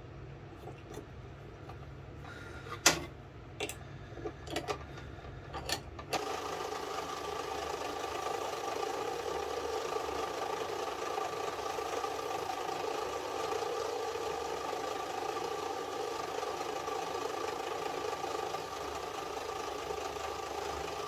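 A few sharp metal clicks as a small part is set in a lathe's collet chuck, then about six seconds in a small metal lathe starts and runs steadily with a mechanical hum.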